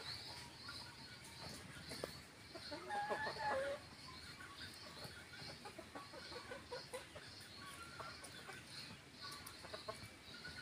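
Chickens clucking, with one louder, drawn-out call about three seconds in, followed by a run of quick short clucks.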